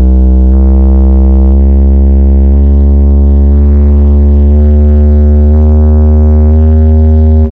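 Bass test track played loud through a car audio system: deep, droning bass tones that step to a new pitch about once a second, cutting off suddenly near the end.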